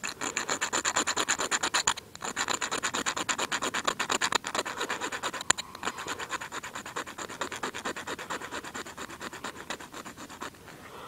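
Hacksaw-blade striker scraping shavings off a magnesium fire-starter block in fast, rhythmic back-and-forth strokes, about seven or eight a second. There is a brief pause about two seconds in, and the strokes grow lighter in the second half.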